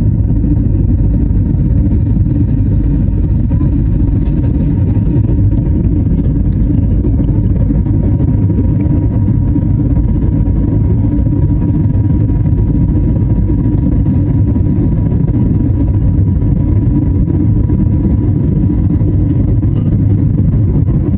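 Steady cabin noise of a jet airliner: a loud, even drone of the engines and airflow, with a faint steady whine.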